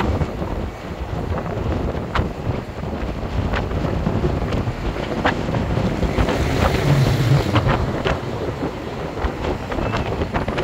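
Wind buffeting the microphone on the upper deck of a moving sightseeing bus, over the rumble of the bus and road traffic, with a few sharp clicks scattered through.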